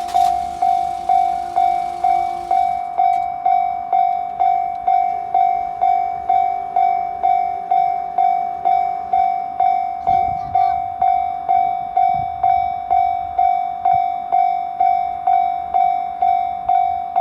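Japanese railway level crossing's electronic warning bell ringing steadily, a single-pitched ding repeating evenly about two and a half times a second: the crossing is in its warning phase.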